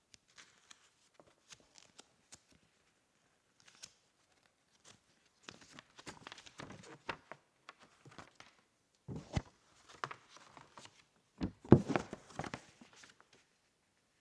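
Keyboard packaging being handled and opened: scattered light clicks and taps, then rustling and tearing from about halfway, loudest near the end.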